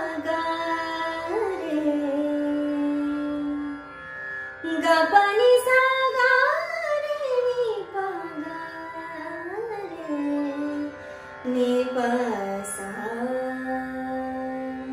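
A woman sings Hindustani classical vocal without words: long held notes joined by slow glides, climbing to a high point about six seconds in and settling back to a long low note near the end. A steady drone sounds beneath the voice throughout.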